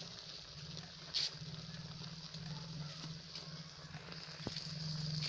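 Milkfish and cabbage stew simmering in a pan, a steady soft hiss with a few small pops and clicks, over a low steady hum.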